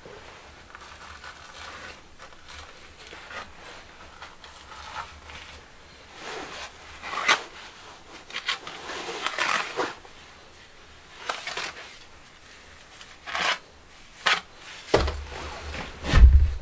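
Irregular scraping, rustling and knocking sounds, ending with a deeper thud near the end.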